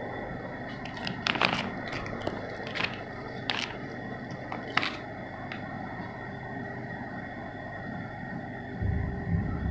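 Clear plastic packaging bag crinkling as it is handled, with several sharp crackles in the first five seconds, over a steady background hum. A few low thumps come near the end.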